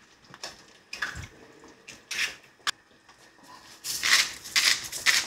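A few knocks and soft wet plops as eggs go into a wok. Then, from about four seconds in, a salt grinder is twisted over the pan in a quick run of gritty crunching strokes.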